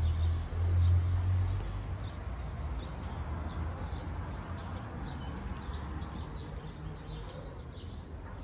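Small birds chirping over a steady low engine rumble. The rumble is loudest in the first second and a half, then settles, while the chirps come thick and fast through the rest.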